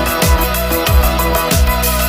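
Electronic background music with a steady kick-drum beat, about three beats a second, under sustained synth tones.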